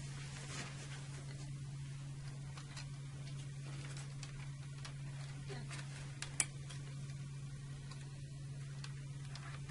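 Faint plastic clicks and taps as wire-lead connectors are pushed into the slots of a circuit breaker's secondary terminal bracket, with one sharper click about six seconds in, over a steady low hum.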